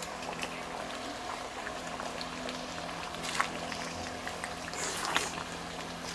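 Thick chicken rendang gravy bubbling in a large aluminium wok while a wooden spatula stirs through it, with scattered small pops and clicks. There are two sharper clicks about three and a half and five seconds in, over a steady low hum.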